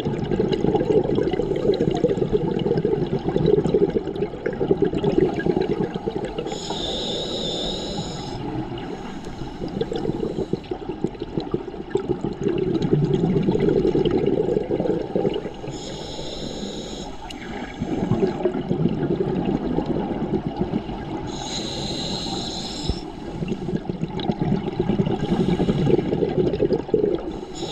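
Scuba diver breathing through a regulator underwater: a short hiss on each inhale, four times, each followed by a long rush of exhaled bubbles, in slow cycles several seconds apart.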